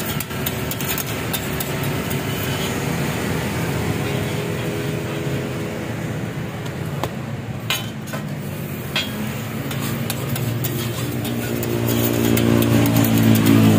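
Steady street traffic noise with vehicle engines, and an engine, likely a motorcycle, building up and passing close near the end. A couple of short metal clacks from a steel spatula on the griddle about halfway through.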